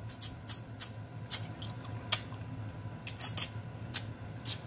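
Close-miked wet mouth sounds, irregular lip smacks and sucking clicks, as meat is nibbled and sucked off a small rabbit bone.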